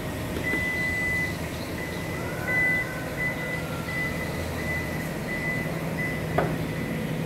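Toyota Yaris Cross power back door closing under its own power: a long warning beep, then short beeps repeating about every 0.7 s over a low steady hum. The beeping ends with a sharp click about six and a half seconds in as the tailgate latches shut.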